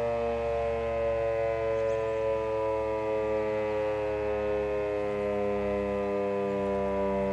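Federal Electric Fedelcode Type Mach. 5 warning siren sounding its daily test signal: a loud, steady wail made of several pitches at once, sagging slightly in pitch.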